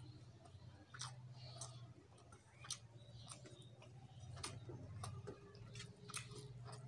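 Close-up eating sounds: scattered soft clicks and smacks of chewing and of fingers mixing rice and dal on a steel plate, over a faint steady low hum.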